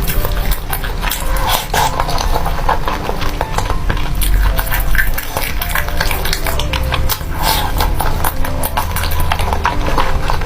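Close-miked eating sounds: slurping and chewing noodles, with many quick wet mouth clicks.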